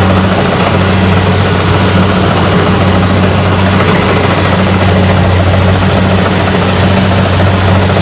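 Rice combine harvester's diesel engine running loud and steady: a strong low drone under a dense rushing machine noise.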